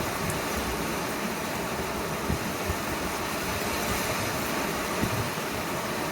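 Heavy rain falling in strong wind: a steady hiss, with a few low gusty rumbles.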